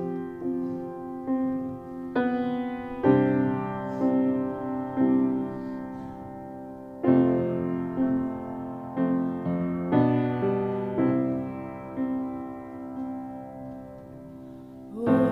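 Grand piano playing a slow introduction of held chords, a new chord struck every second or two, each ringing and fading.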